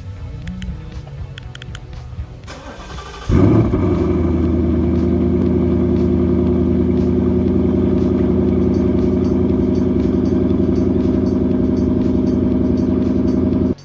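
A Ford Mustang GT's 5.0-litre V8 is started through an exhaust with the resonators deleted and an H pipe fitted. The starter cranks briefly, the engine catches about three seconds in with a loud flare, then settles into a steady idle with a deep exhaust note, which cuts off suddenly near the end.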